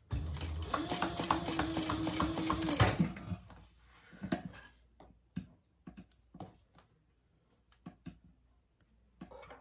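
Electric sewing machine stitching a fabric strap: a rapid, even stitch rattle over a steady motor hum that runs for about three seconds and then stops, followed by a few faint clicks.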